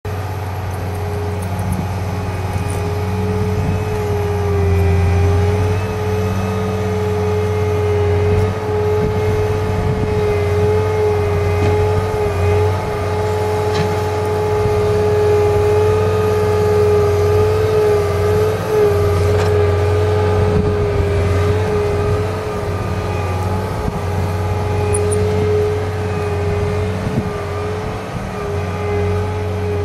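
Cat 239D compact track loader's diesel engine running steadily under load as it pushes a SharpGrade grading box through sand. A constant high whine rides over the engine drone, with a few light clanks.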